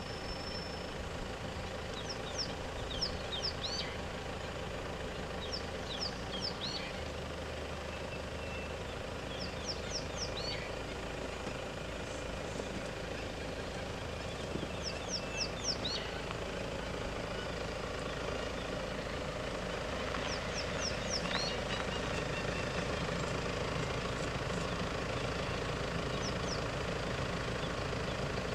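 Car engines idling steadily, with a bird calling repeatedly over them in short phrases of quick, high, falling notes every few seconds.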